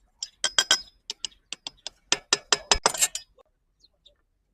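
A quick, uneven run of sharp metallic clinks, some of them ringing briefly, about fifteen in three seconds, which stop a little past three seconds in.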